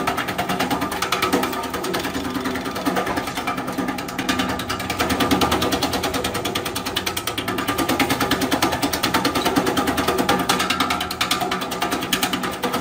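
Electric herb-slicing machine running, its rotating disc blades chopping hand-fed branches into slices with a rapid, even clicking.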